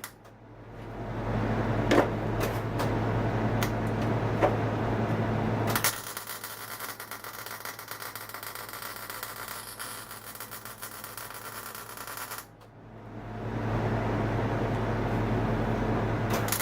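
Electric arc welder laying weld into slots cut in transaxle gears: a steady hum under the crackle and spatter of the arc, in runs with a short break between them.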